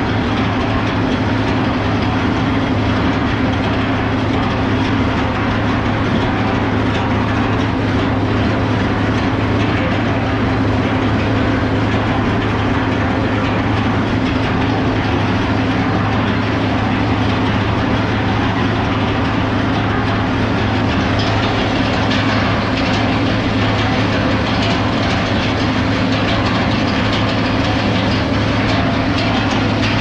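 Hitachi Zaxis 220 excavator's diesel engine running steadily, a constant low drone that does not rise or fall.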